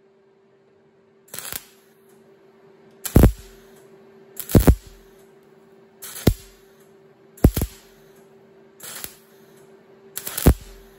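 MIG welder laying a row of short tack welds on a sheet-metal body panel: seven brief bursts, roughly one every second and a half, over a steady faint hum.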